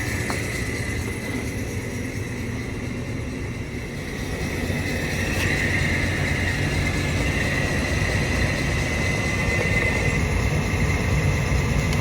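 Steady machine rumble with a high, even whine, typical of running air-handling equipment such as a makeup air unit's blower; it swells slightly about five seconds in.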